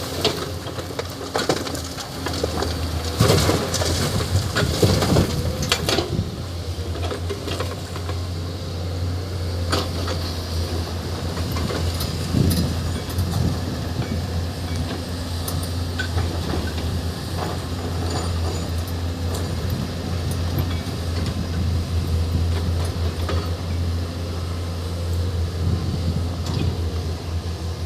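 Hyundai PC210 excavator's diesel engine running steadily. Loud scraping and clattering of dirt and rock comes in the first few seconds, with scattered knocks after.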